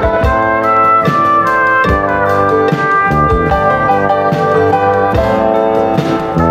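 Instrumental dance-band music: a brass melody over drums and guitar, with a steady beat.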